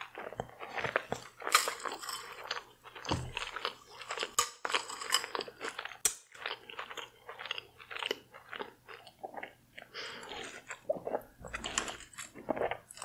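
Close-miked chewing and biting of seafood boil, with irregular crunches and wet smacking mouth sounds.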